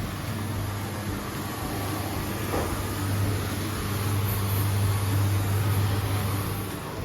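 Vacuum cleaner running with a steady motor hum and rushing air.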